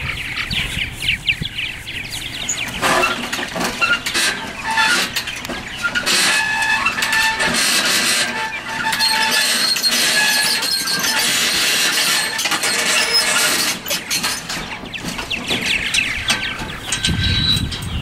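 A colony of purple martins chirping and chattering, many birds calling over one another, thickest through the middle and thinning near the end.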